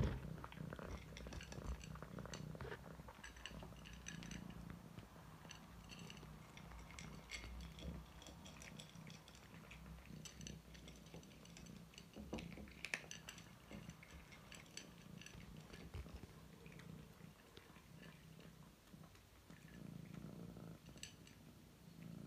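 A cat purring faintly while it eats dry kibble, with scattered small crunching clicks as it chews.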